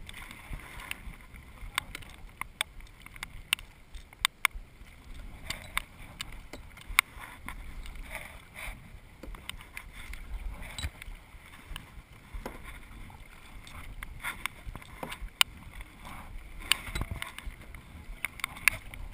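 Kayak out on the water: irregular sharp clicks and knocks, many a second or so apart, over a low steady rumble.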